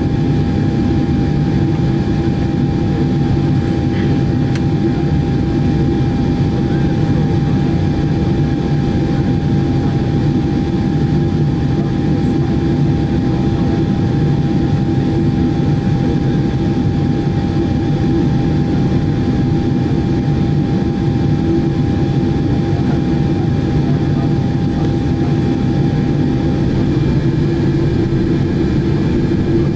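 Boeing 747-8 cabin noise while taxiing: the GEnx jet engines running at low taxi thrust give a steady rumble with a thin steady whine, heard from inside the cabin.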